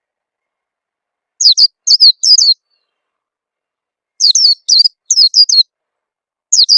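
Orange-headed thrush (peleci) calls played as a lure: three bursts of four or five quick, high, downward-slurred chirps, about two and a half seconds apart.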